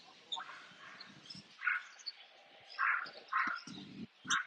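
Short animal calls, chirps repeated several times with gaps between them. A steady hum comes in about halfway.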